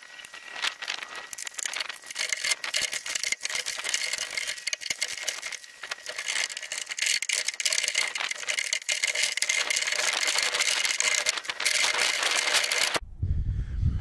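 Dense rattling and clicking of metal and plastic parts as a replacement door latch assembly is handled and fitted into a Fiat Scudo van's door. The sound is thin and high-pitched, with many quick clicks, and stops abruptly near the end.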